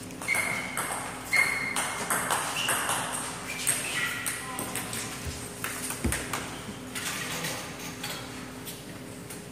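Table tennis rally: the celluloid ball clicking off rubber paddles and pinging on the table in a fast run of hits and bounces for about seven seconds, then stopping. There is a low thump about six seconds in.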